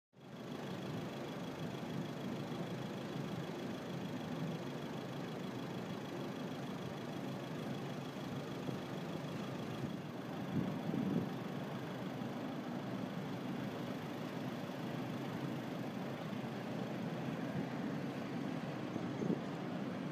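Forklift truck engine running steadily, with a faint high steady whine through the first half.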